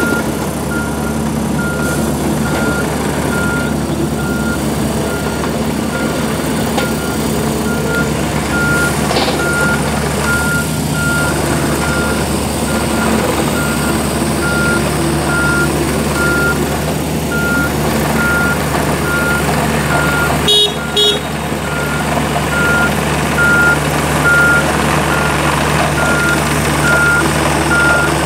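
Volvo EC35C mini excavator's diesel engine running steadily under hydraulic work as the machine travels and swings, with its warning alarm beeping about once a second.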